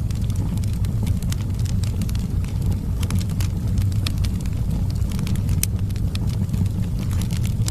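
Wood fire crackling in a fireplace: a steady low rumble of flames with frequent, irregular sharp pops and snaps.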